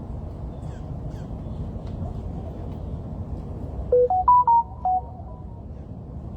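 A short electronic jingle of about five quick pure beeps, stepping up in pitch and back down, about four seconds in, over a steady low rumble.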